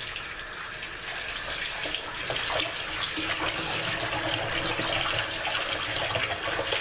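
Kitchen tap running into a bowl of water holding raw chicken pieces. It grows louder after about two seconds as a hand swishes and splashes the pieces around in the water.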